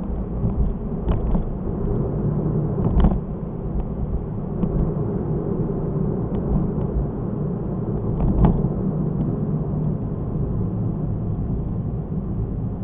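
Car being driven, recorded by a dashcam: a steady low rumble of engine and road noise, with short knocks about 1, 3 and 8 seconds in.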